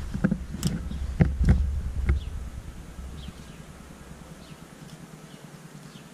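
Footsteps crunching on twigs and leaf litter, a few sharp snaps over a low wind rumble on the microphone. After about two seconds this dies away to quiet outdoor air with a few faint bird chirps.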